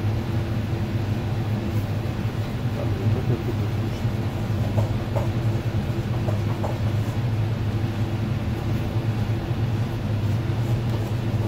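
Steady low machinery drone with a constant hum, typical of kitchen ventilation or refrigeration equipment running.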